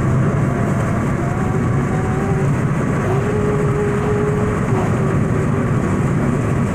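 Steady road and engine rumble inside the cabin of a moving 2001 Toyota Echo, cruising at highway speed.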